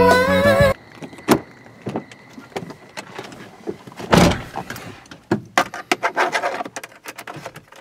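Intro music cuts off under a second in, followed by irregular clicks, knocks and rattles inside a moving car, with a sharp knock shortly after and the loudest thump about four seconds in.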